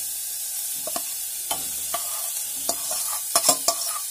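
Grated carrots sizzling in hot melted ghee in a steel pot, with a steady high hiss. A steel spoon scrapes and clinks against the metal from about a second in, the strokes coming more often near the end.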